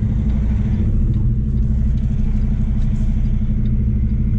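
Semi truck's diesel engine running at a steady low idle, heard from inside the cab while the tractor-trailer reverses slowly.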